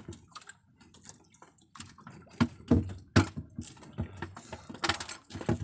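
Irregular light clicks and knocks of a fishing hand line and its hooks being handled in a small wooden outrigger boat, with a few sharper knocks in the second half.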